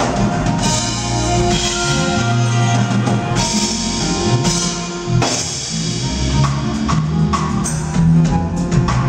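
Live smooth-jazz band playing, with the drum kit prominent and an electric guitar over a deep bass line; cymbal and drum hits recur through it.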